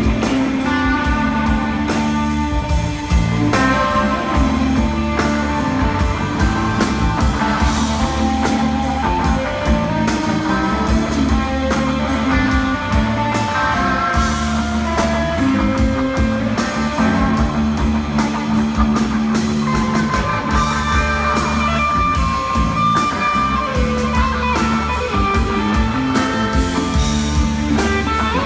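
Live blues-rock band playing an instrumental passage: a lead electric guitar plays single-note melodic lines over bass and a drum kit, with no singing.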